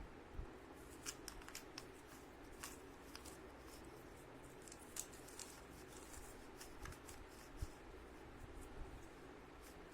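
3×3 Rubik's cube being turned quickly by hand during a timed solve: faint, irregular plastic clicks and clacks as the layers are turned.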